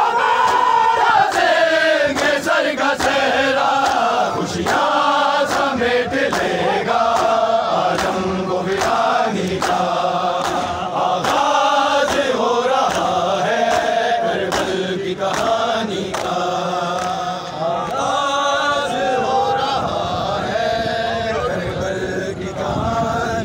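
A crowd of men chanting a noha (lament) together, over an even beat of thumps.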